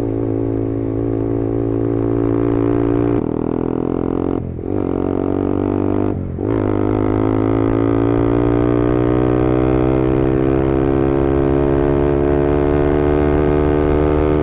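Yamaha R15M's single-cylinder engine through an SC Project full-system exhaust, ridden under steady throttle. There are two brief throttle cuts about four and a half and six seconds in, then a pull with the pitch slowly rising.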